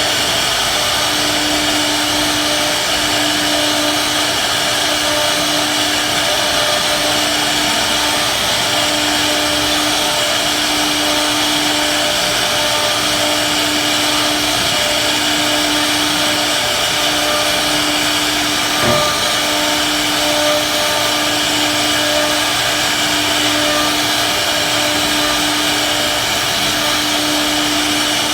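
CNC router spindle running steadily while routing a headboard design into wood, a loud high whine and hiss over a steady low hum that dips briefly every second or two as the machine changes direction. A single short knock comes about two-thirds of the way through.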